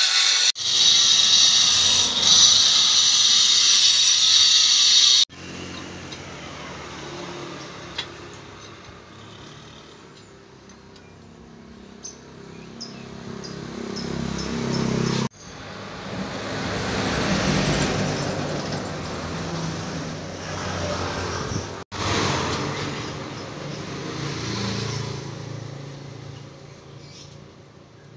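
A handheld angle grinder cutting ceramic tile, loud and steady, stops abruptly about five seconds in. After that, much quieter background with road vehicles swelling and fading as they pass, and a few light clicks.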